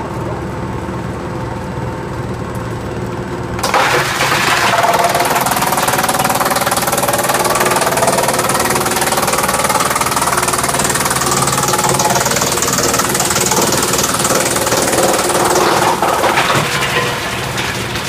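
Drum wood chipper running with a steady machine hum, then about four seconds in the log on the infeed conveyor reaches the knives and is chipped: a sudden loud, harsh noise with a whine that wavers in pitch, easing off near the end as the log is used up.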